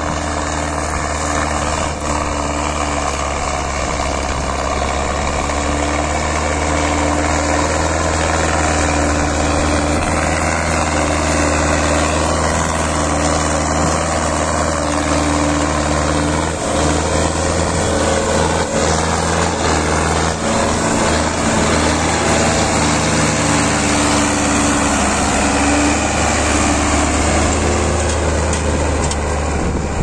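Belarus 510 tractor's diesel engine running steadily under heavy load while pulling a cultivator deep through the soil, its exhaust blowing thick black smoke.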